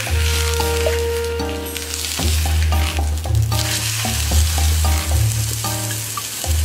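Kyoto-style deep-fried tofu (kyō-age) sizzling in a dry nonstick frying pan, toasting in its own oil with none added, as cooking chopsticks turn it. Background music with a steady bass line plays over it.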